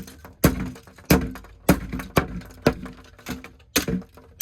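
A hammer repeatedly smashing a plastic alarm clock radio: about seven sharp cracking blows, roughly two a second, breaking up the case and parts.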